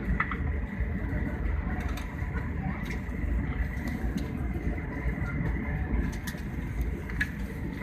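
Steady rumble inside a jet airliner's cabin as it rolls on the runway just after landing, with a few thin, steady whining tones over it.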